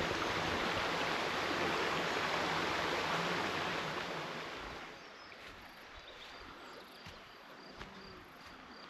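Cold mountain river rushing as a steady hiss of flowing water, fading away about four to five seconds in. After that only a faint background with a few small clicks remains.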